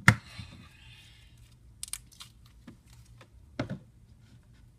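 Plastic slime containers being handled: a sharp knock at the start, about a second of crinkling rustle, then a few light clicks and another knock a little past the middle.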